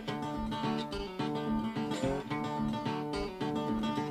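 Acoustic blues guitar playing an instrumental passage of picked notes, some slid or bent up in pitch, with a steady bass line under them.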